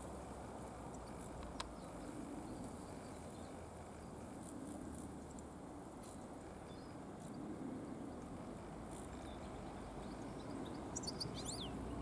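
Steady low outdoor rumble, with a single faint click about one and a half seconds in and a few quick, high bird call notes near the end.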